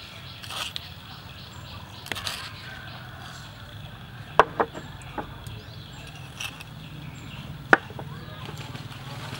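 A metal spoon clicking sharply against a bowl a few times, the loudest clicks about halfway through and about three quarters through, while white seasoning granules are scooped and sprinkled with a soft hiss. A low steady hum runs underneath.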